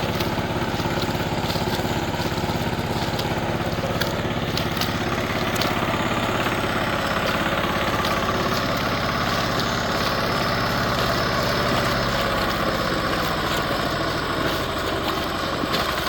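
An engine running steadily at idle, with a fast, even firing beat.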